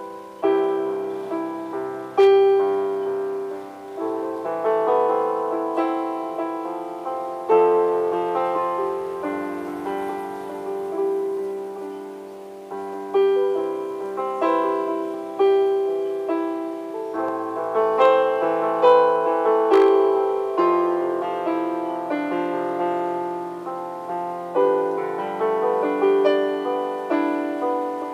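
Electronic keyboard played with a piano voice: a tune of chords under a melody, each note struck and then fading.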